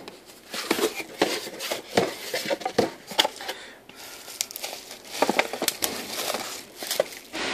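A cardboard box being opened and the bubble wrap inside handled: irregular crinkling and rustling with scattered sharp clicks.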